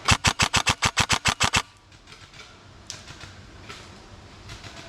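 Airsoft electric rifle firing a full-auto burst of about a dozen shots in a second and a half, a fast snapping rattle; a few faint single shots follow.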